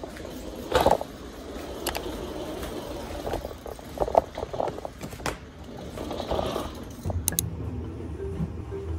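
Plastic laundry basket and its lid being handled: several sharp plastic knocks and clacks amid rustling of clothes being lifted out. Near the end the clothes go into a top-loading washing machine.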